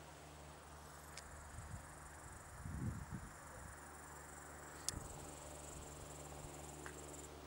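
Faint, steady high-pitched chirring of insects that cuts off suddenly near the end, over a low steady hum. A low thump comes about three seconds in and a sharp click about five seconds in.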